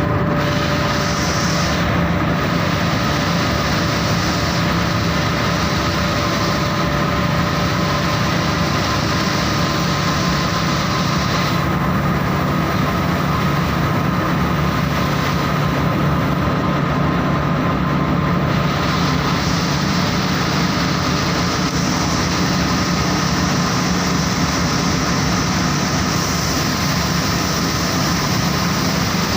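Saurer JSC 330 carding machine running: a steady mechanical hum with a couple of thin, high whining tones over it, at an even level throughout.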